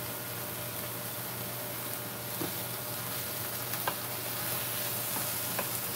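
Squash and string beans sizzling as they sauté in a frying pan, with a few clicks of a wooden spatula against the pan as the vegetables are stirred.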